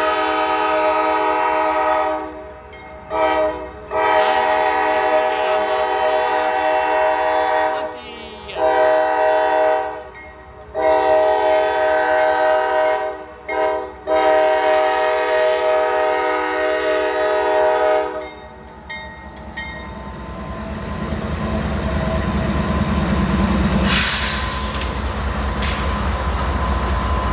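Norfolk Southern freight locomotive's multi-note air horn sounding a series of long and short blasts for about eighteen seconds. Then the train's rumble and wheel clatter grow steadily louder as it approaches, with a brief high screech about 24 seconds in.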